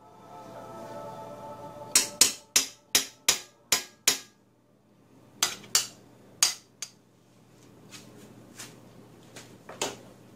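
Utensil tapping and clinking against a stainless steel frying pan while stirring butter into oil. There is a quick run of about seven sharp taps, then a few more spaced out, and fainter taps near the end.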